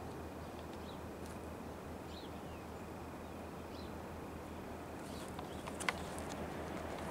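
Outdoor ambience: a steady low background hum with faint, short bird chirps every second or so. Near the end a few sharp clicks and rustles, the loudest about six seconds in, as the handheld camera is swung and handled.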